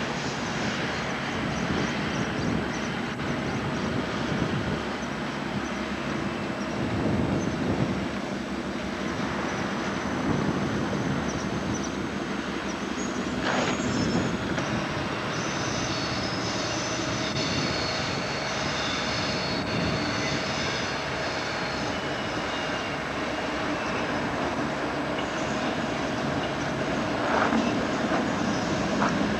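Diesel locomotive hauling a freight train past on the main line, its engine running steadily and the wagons rumbling over the rails, with some high squealing tones in the middle.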